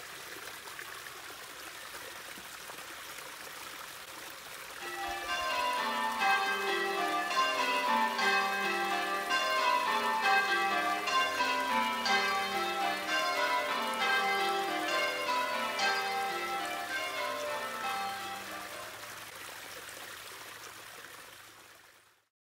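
Water trickling from a small stone culvert into a stream. About five seconds in, church bells begin ringing in rows that step down in pitch, over the running water. The bells fade away near the end.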